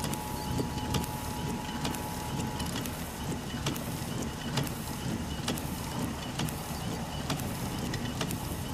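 Low rumble of wind around a parked vehicle with irregular sharp ticks of raindrops striking it. A steady two-tone emergency alert attention signal from the radio holds and cuts off about two and a half seconds in.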